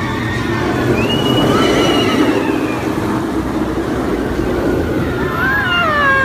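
Inverted roller coaster train running along the track overhead, a steady rumble, with riders screaming: one drawn-out scream about a second in and several falling screams together near the end.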